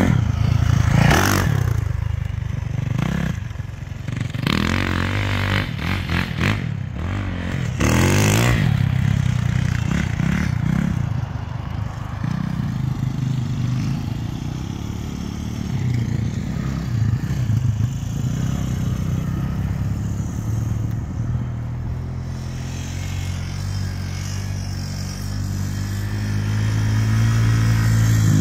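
Small off-road engines of a dirt bike and quads running: several loud revving surges in the first eight or nine seconds as a dirt bike rides past, then a steadier engine hum that grows louder again near the end as a quad comes by.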